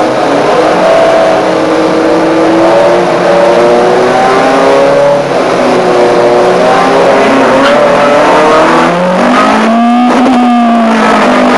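Ford Fiesta 1.4 Zetec four-cylinder race car engine pulling hard at high revs, heard from inside the cockpit, with other race cars close around. The engine note shifts about nine seconds in, then climbs again.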